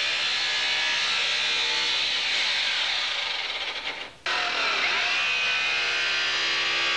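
Power tool's abrasive wheel grinding metal with a steady high whine. The sound sinks away just before four seconds in, then cuts back in suddenly, the pitch bending briefly as the wheel bites again.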